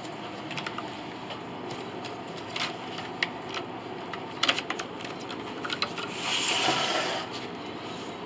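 Old wooden piano soundboard boards being handled and pulled from a bundle: scattered light knocks and clicks of wood on wood, then a longer scraping slide about six seconds in.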